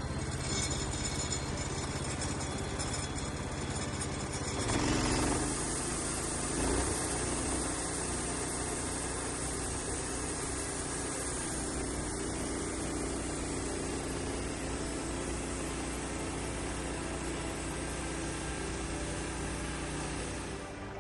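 Norwood portable sawmill's engine running steadily while milling a log; about five seconds in the sound shifts and a steady high hiss joins it as the blade saws through the wood.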